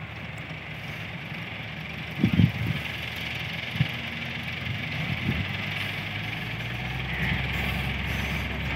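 Diesel engines of a motor grader and a Massey Ferguson tractor running steadily under load while they work soil. A few dull thumps come about two and a half and four seconds in, and the low engine hum grows stronger in the second half.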